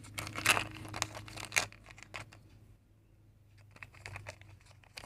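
Hands handling the small plastic pieces of a Kinder Joy toy and its plastic capsule: a busy run of crinkling and clicking, a lull in the middle, then a few more clicks near the end.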